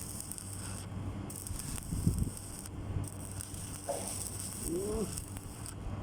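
Electric arc welding: the arc's crackling hiss, cutting out briefly a few times as the arc breaks and restarts.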